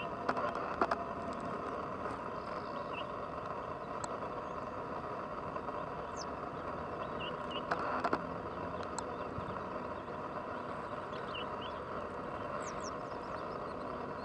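Steady outdoor wetland background noise with a few faint, short, high bird chirps scattered through it and occasional sharp ticks, a cluster of them about eight seconds in.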